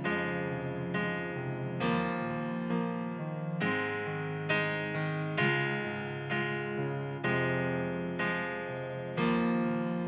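Stage keyboard playing a piano sound alone, sustained chords struck about once a second with no singing.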